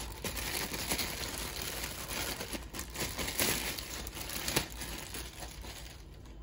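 Thin clear plastic bag crinkling as it is pulled off a fishing reel by hand, with several sharper crackles; it quietens near the end.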